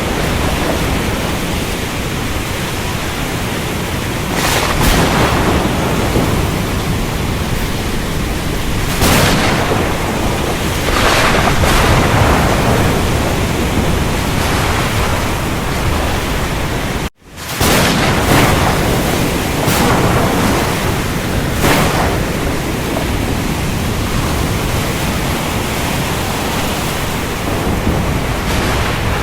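Steady heavy rain with thunder swelling over it several times. The sound drops out for a split second about seventeen seconds in.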